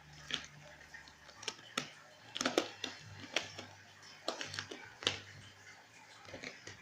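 Irregular rustles and light taps of squishy toys and their packaging being handled and packed into a bag, over a faint steady low hum.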